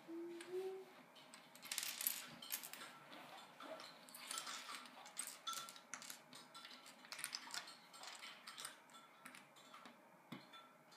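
Small plastic Lego pieces clicking and rattling as they are picked through and handled during building: a run of light, irregular clicks. A short hummed note ends about a second in.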